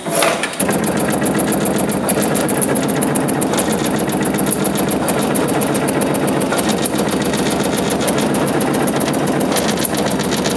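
Amada EMZ 3610NT CNC turret punch press, with its AC servo direct-drive ram, punching sheet metal in a rapid, even train of strikes.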